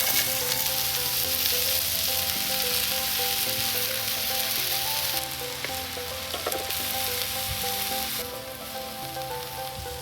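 Food sizzling and frying on a hot pan over a campfire: a dense hiss that is strongest over the first several seconds and eases off near the end.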